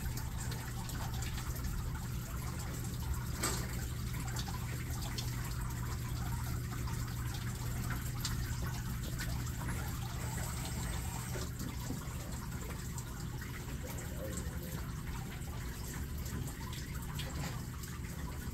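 Water trickling and dripping through a vertical hydroponic grow tower as it recirculates, with a steady low hum under it.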